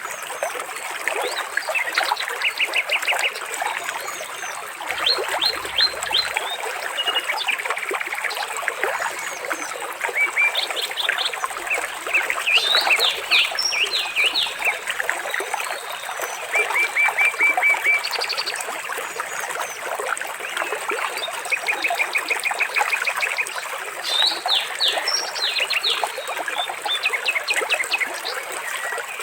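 Water trickling steadily, with many birds chirping and calling over it: quick, even trills and short upward chirps, overlapping and coming and going.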